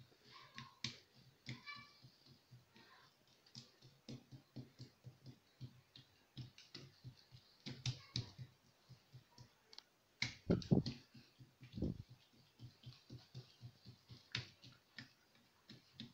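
Oiled hands patting and pressing msemmen dough thin on a granite countertop: a steady run of soft, sticky slaps, about three a second, with a few louder thumps about ten to twelve seconds in.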